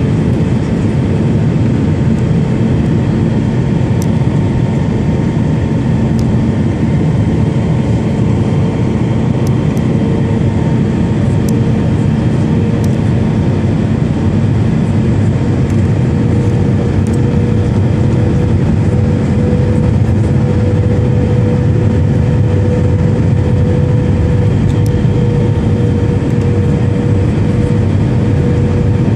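Cabin noise of an Airbus A319 on approach, heard from a window seat beside the engine: a steady rumble of engine and airflow with a humming engine tone that rises slightly in pitch around the middle.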